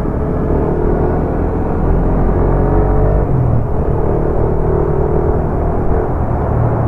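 Motorcycle engine running steadily as the bike rides along in traffic, with a low rumble of road and wind noise.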